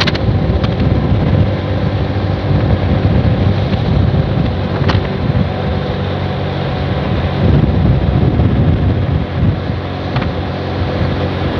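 Wind rushing over the microphone while a motorcycle engine runs steadily at road speed.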